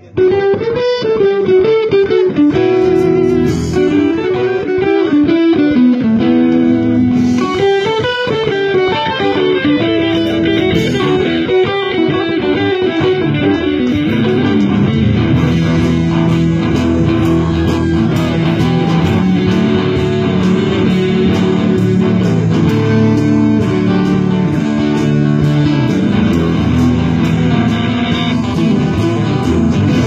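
Live band playing a guitar-driven rock song: electric guitar lines over a bass line, kicking back in right at the start after a momentary break.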